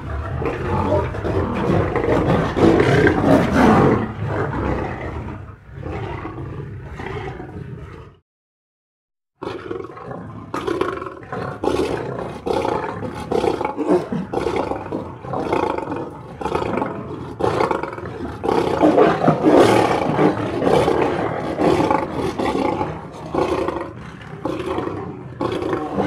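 A group of lions roaring, their calls overlapping in a dense, continuous chorus. It breaks off completely for about a second just after eight seconds in, then resumes.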